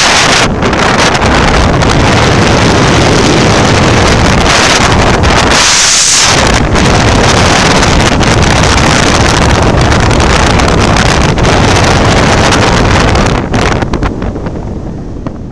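Loud rush of wind over a hang glider in flight, buffeting the microphone. It swells at the start, turns briefly to a higher hiss about six seconds in, and eases off near the end.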